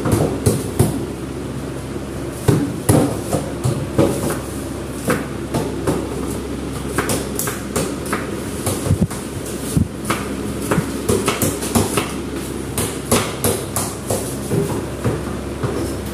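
Irregular knocks and clatter of plastic table legs being handled and worked into the sockets of an upside-down plastic table top, over a steady background hum.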